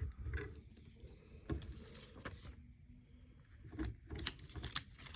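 Faint, scattered clicks of plastic LEGO pieces being handled and pressed together, a few sharp ticks a second or so apart over a low background.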